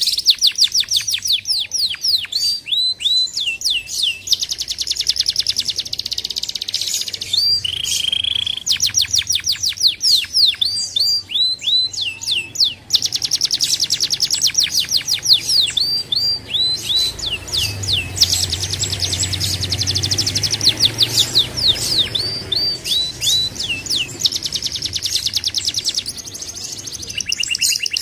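Domestic canary singing a continuous song: long rapid trills of repeated high notes, alternating with runs of quick downward-sweeping whistles, and a lower buzzy note about eight seconds in.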